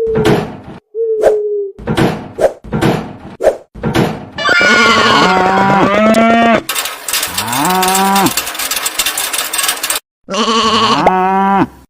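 A quick run of sharp knocks or taps, then from about four seconds in several long, loud livestock-like animal calls whose pitch bends down and up, over a hiss. The calls stop abruptly just before the end.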